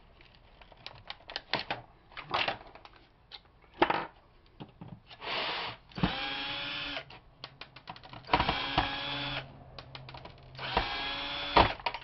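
A small power screwdriver whirring in three short bursts in the second half, backing screws out of a computer keyboard, among the clicks and rattles of plastic keyboard parts being handled.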